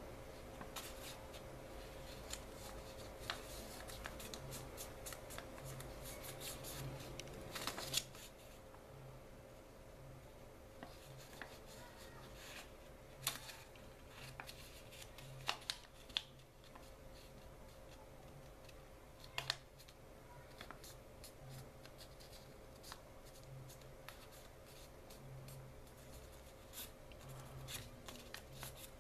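A square sheet of origami paper handled and folded by hand: irregular crinkling and rustling with sharp clicks as creases are pressed, the loudest about eight seconds in.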